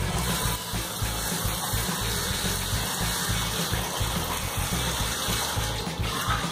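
Kitchen tap running, the water stream splashing into a frying pan held under it in a sink, with background music playing.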